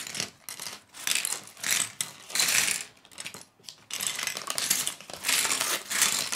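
Small plastic Lego pieces clattering as they are tipped out of a paper parts bag onto a wooden table, with the paper bag rustling, in irregular bursts.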